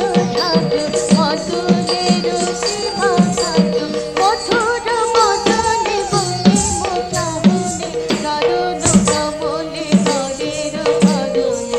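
Manipuri classical dance music: a voice singing a gliding melody over a held note, with regular drum strokes and jingling cymbals keeping the rhythmic cycle.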